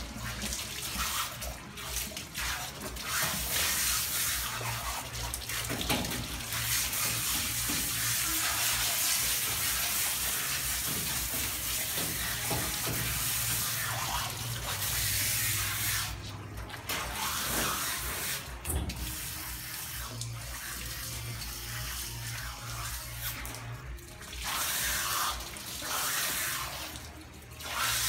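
Water from a hand-held pistol-grip hose sprayer hissing and splashing onto a wet dog's coat and into a stainless steel grooming tub. The spray briefly drops off a few times in the second half as it is let off and squeezed again.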